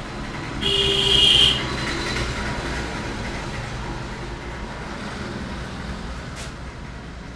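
Street traffic noise, with a short, loud high-pitched tone lasting under a second about a second in.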